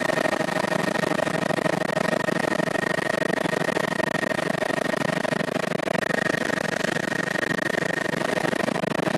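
Helicopter in flight: a steady, loud din of engine and rotor noise, with a steady high whine over it.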